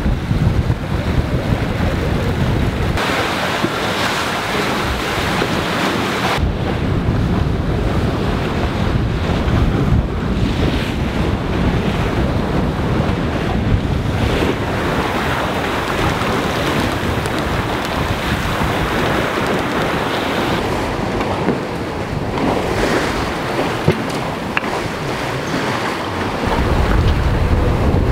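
Sailing yacht under way at sea: water rushing and breaking along the hull and in the wake, with wind buffeting the microphone. The sound shifts abruptly a few times.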